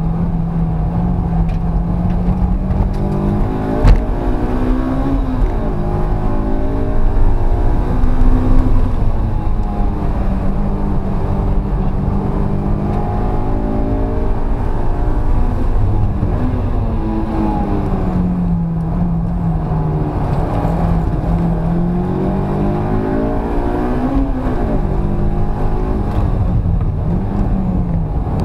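Honda S2000's four-cylinder engine heard from inside the cabin under hard track driving, its pitch rising and falling again and again through acceleration, shifts and braking. A sharp knock stands out about four seconds in.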